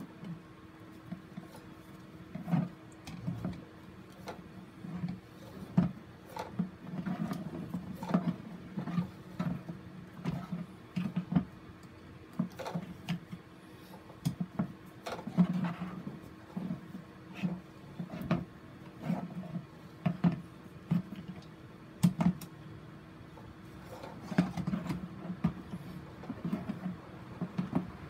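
Handling noise from mounting a staghorn fern: a plastic mounting board knocks and clicks against a plastic tub, and gloved hands rustle over a sphagnum moss ball. The knocks and rustles come irregularly, several a second at times, over a faint steady hum.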